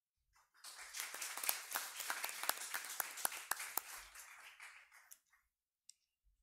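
Audience applauding, starting about half a second in and dying away after about five seconds.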